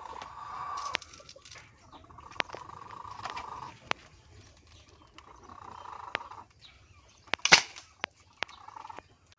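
A single shot from a homemade PVC pump-action air rifle about seven and a half seconds in: a sharp, loud burst of released air. Before it, a mid-pitched sound comes and goes three times, a second or two each time, with a few light clicks.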